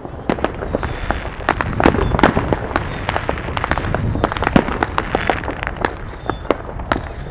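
New Year's fireworks going off across a city: a dense, irregular crackle of bangs and pops, some loud and some faint, over a low rumble.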